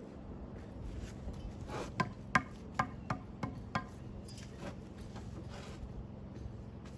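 A hand tool tapping and knocking on stone: about six sharp knocks roughly half a second apart between two and four seconds in, then fainter scraping and taps, over a steady low hum.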